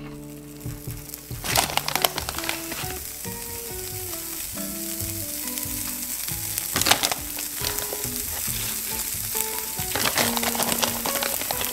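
Background music with a light melody over a steady hiss, with short bursts of sharp clatter near two seconds in, about seven seconds in (the loudest) and near the end.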